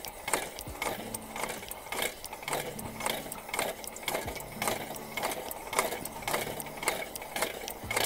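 The hand air pump of a Petromax 500 CP kerosene pressure lantern being worked, its plunger clicking about twice a second. It is pumping air into the fuel tank to top up the pressure spent by the lantern's preheating torch.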